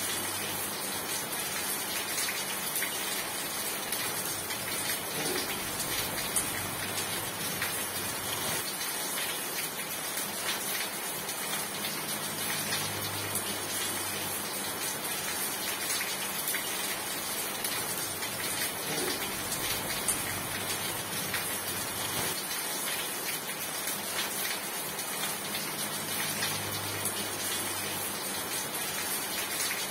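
Steady rain falling, a continuous hiss with many small drops pattering on a surface. A faint low hum rises and fades a few times.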